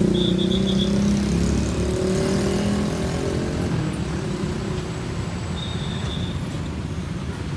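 A heavy truck's engine drones as it passes and fades over the first few seconds, leaving steady traffic noise. A couple of faint high chirps sit over it.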